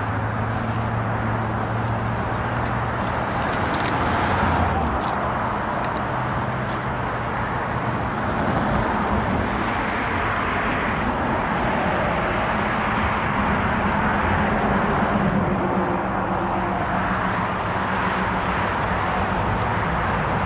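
Steady road traffic noise, with the hum of vehicle engines rising and fading as cars pass.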